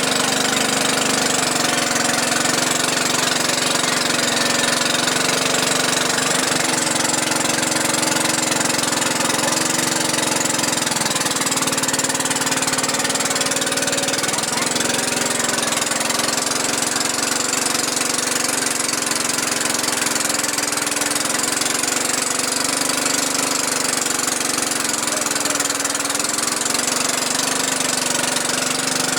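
An engine running steadily, with its pitch dipping slightly a few times.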